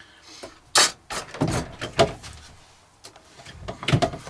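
Kitchen handling noises: a handful of sharp knocks, the loudest about a second in and again near the end, with rubbing and shuffling between them as things are moved about on a counter.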